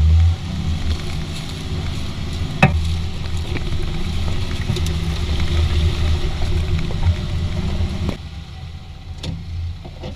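Jeep driving slowly over a rocky trail: a steady low engine rumble with tyre and gravel crunch, and one sharp knock about two and a half seconds in. About eight seconds in, the sound drops to a quieter rumble.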